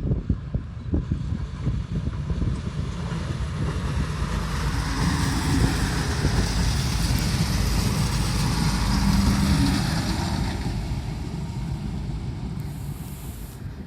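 DB Class 426 electric multiple unit passing by, its running noise swelling to a peak midway and then fading away, with a few sharp clicks near the start.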